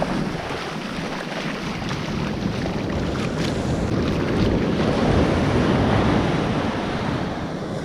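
Ocean surf washing up the beach, swelling about halfway through, with wind rumbling on the microphone.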